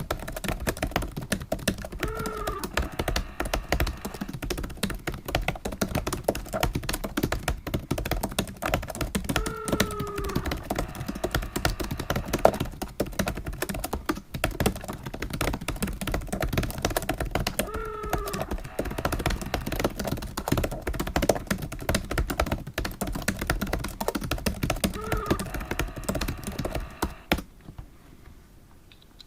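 Fast, continuous typing on a computer keyboard, stopping near the end. A short falling tone sounds four times during the typing.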